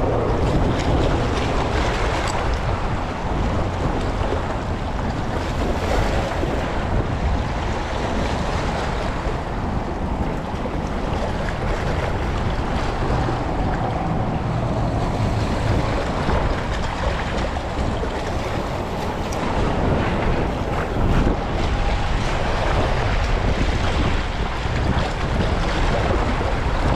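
Wind buffeting the microphone over the wash of shallow water, a steady noisy rumble with hiss.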